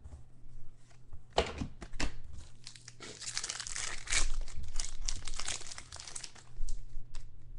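Crinkling and tearing of a trading-card pack's plastic-foil wrapper being handled and opened, a crackle of many small noises that is densest in the middle.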